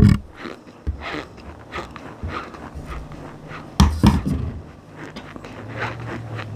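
Close-miked crunching: a run of sharp crunches and crackles, the loudest at the start and about four seconds in.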